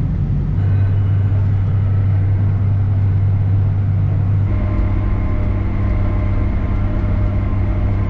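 Tractor engine running steadily under the cab, a loud low hum whose tone changes about halfway through.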